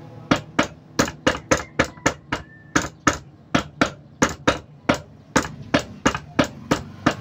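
Rapid, regular hand-hammer blows on a stripped Honda TMX 125 motorcycle engine, about three to four strikes a second, each with a short metallic ring, with one brief pause a little past the middle.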